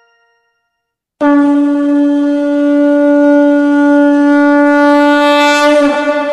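Conch shell (shankha) blown in one long, loud, steady note that starts abruptly about a second in and wavers and dips in pitch near the end, the customary call that opens a Hindu prayer.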